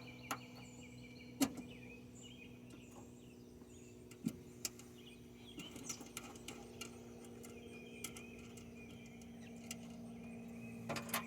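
A few sharp metallic clicks and taps from hand tools tightening the terminal nuts of a starter solenoid, the clearest about a second and a half in and again about four seconds in. Faint bird chirps and a steady low hum run underneath.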